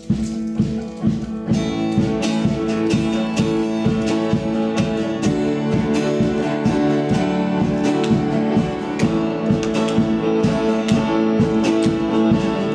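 Instrumental intro of a worship song: strummed acoustic guitar on a steady beat, with more instruments filling in about a second and a half in.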